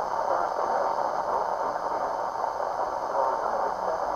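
Weather radio hissing with static: a steady, thin band of noise, the broadcast signal weak and barely coming through.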